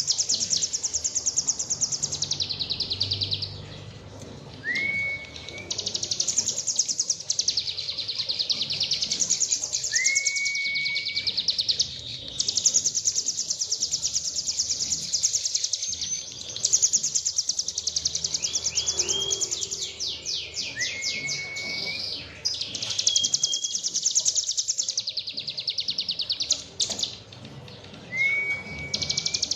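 Cigun (ciblek gunung) singing its fast 'tembakan' song: long, high trills of very rapid repeated notes, broken by short pauses. A short rising whistle comes in four times, several seconds apart.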